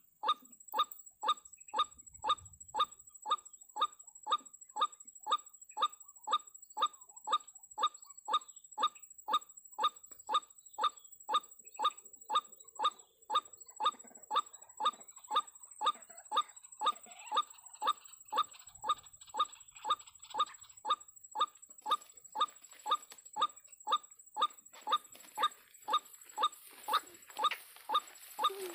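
White-breasted waterhen calls, a short harsh note repeated very evenly at about two a second, over a faint steady high whine.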